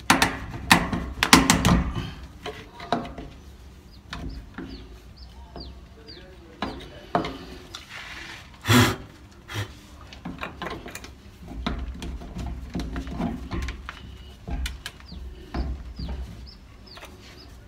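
Grey PVC pipe and fittings handled and pushed together by gloved hands: plastic clicks and knocks come thick in the first couple of seconds, with one louder knock about nine seconds in. Small birds chirp in short falling notes throughout.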